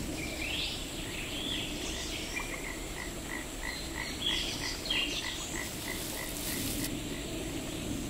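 A frog calling in an even series of short croaks, about three or four a second, with a few rising bird chirps over it and a steady low background rush. A brief hiss comes in near the end.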